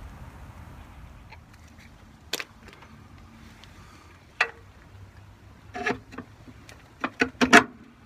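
Handling noise of a small sheet-metal cover and a tube of silicone sealant: scattered sharp clicks and taps, with a quick run of louder clicks near the end.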